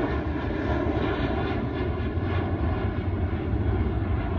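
Jet engines of a Boeing 737 airliner passing overhead: a steady, dense engine noise with a strong low rumble.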